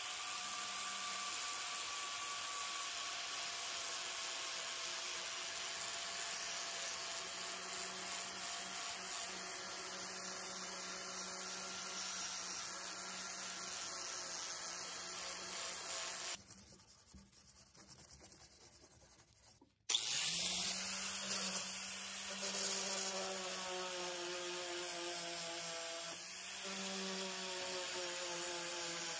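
Electric power tool running steadily with a motor hum, its abrasive working against the piece giving a rubbing, sanding sound. It falls away for about three seconds past the middle, then starts again.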